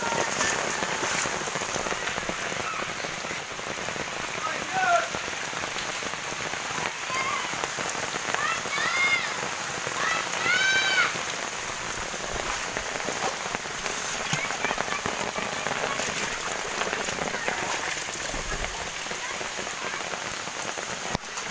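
Heavy rain falling steadily onto flooded, waterlogged ground: an even hiss of downpour. About halfway through, a few short high calls rise and fall in pitch behind the rain.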